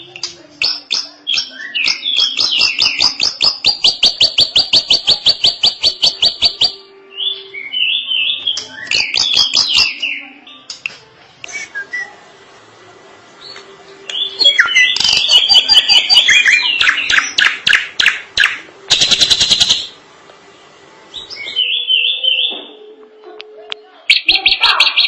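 Drongo singing a long, varied song: whistled phrases mixed with runs of rapid repeated notes at about six a second, and a harsher, buzzy burst about three-quarters of the way through.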